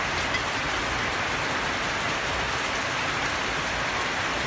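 Steady heavy rain falling.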